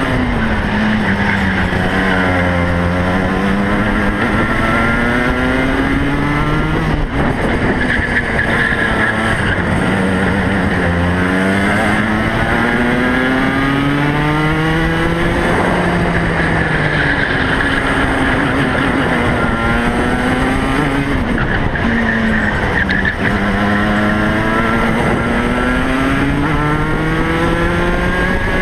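Rotax Max 125cc two-stroke kart engine heard onboard at racing pace, its note climbing steadily as the kart accelerates and dropping away as it brakes for corners, several times over, over a steady rush of wind and road noise.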